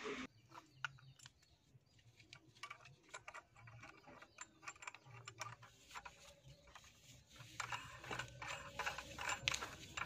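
Faint scattered clicks and light handling noises of brass threaded fittings being fitted by hand onto a water booster pump's inlet and outlet ports, busier in the last two or three seconds.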